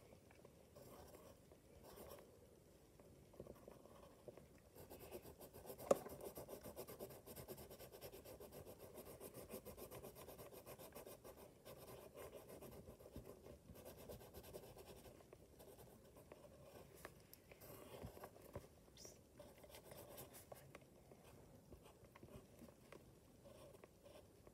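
Faint scratching of a pencil drawing on lined notebook paper, in many short strokes, with one sharper tick about six seconds in.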